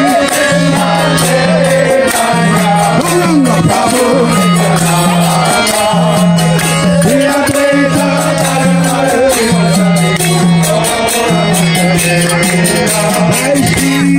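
Kirtan music: a harmonium sounding long held reed notes that step between a few pitches, over a barrel-shaped mridanga drum and steady jingling hand percussion, with voices singing along.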